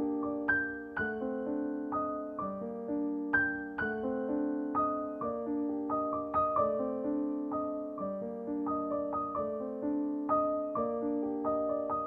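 Solo piano music: melody notes struck one after another over held lower notes, each note ringing and fading.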